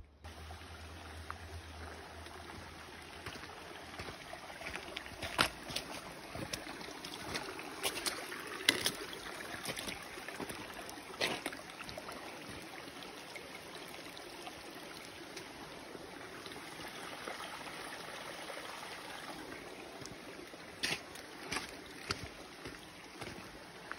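Steady rushing of a mountain brook, with a few sharp footsteps on the rocky trail.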